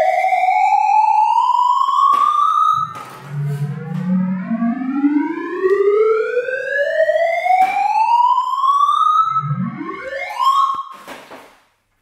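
Synthesized 'Sound of Sorting' tones, whose pitch follows the values of the items the sorting algorithm is touching. The tone makes long rising glides: one ends about three seconds in, then a second climbs from low to high over about six seconds. Quicker rising sweeps and a few clicks follow, and the sound fades out near the end.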